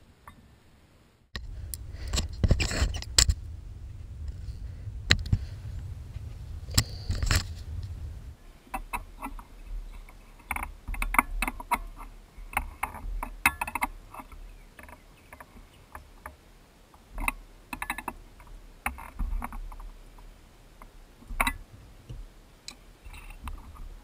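Tools working on a Suzuki Burgman 400's rear brake caliper: irregular small metallic clicks, taps and scrapes. A low rumble under the clicks starts about a second in and stops about eight seconds in.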